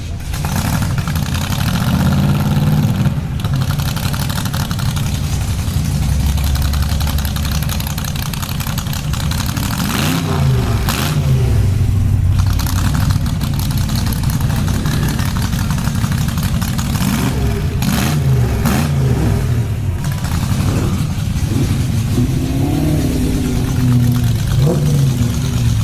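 Hot rod engine running and being revved again and again, its pitch climbing and dropping back each time, with a run of quick blips about two-thirds of the way through.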